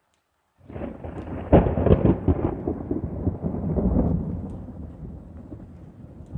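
Thunder from a close lightning strike: a sudden crack well under a second in, the loudest clap about a second later, then low rumbling that fades slowly over the next few seconds.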